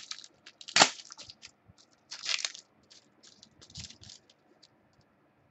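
Trading cards being handled and flipped through: short rustles and light clicks, with one sharp snap about a second in.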